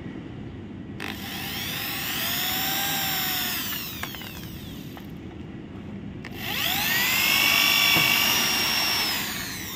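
Corded DongCheng electric drill boring screw holes into a white aluminium interlock profile: two runs, each a whine that rises as the motor spins up and falls as it winds down, the second louder.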